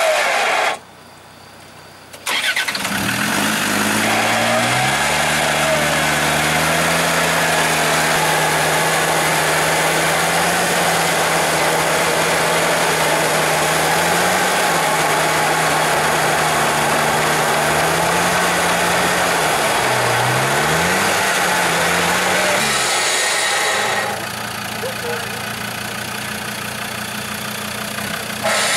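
Land Rover Defender's diesel engine comes in after a brief quiet break near the start, revs up, then runs at steady raised revs under load while the truck is winched up a muddy bank, its pitch dipping and rising a few times. Near the end it gets somewhat quieter.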